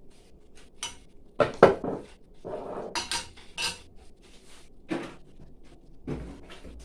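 Cooking utensil knocking and clinking against a pot of curry: a run of irregular sharp knocks, the loudest about one and a half seconds in.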